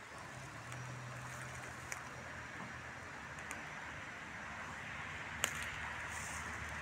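Second-generation Toyota Prius driving slowly past on a leaf-strewn road: steady tyre noise with a low hum, and a few sharp clicks, the loudest about five and a half seconds in.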